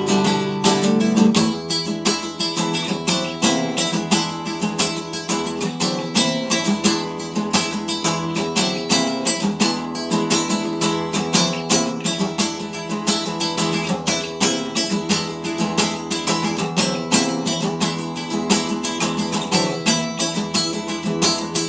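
Instrumental break of a song: acoustic guitar strummed in a quick, even rhythm, with no singing.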